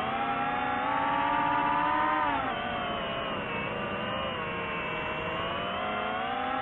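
Multirotor drone's propellers whining in flight. Several close pitches drift up and down together: the pitch rises about a second in and falls back after about two and a half seconds as the motors change speed.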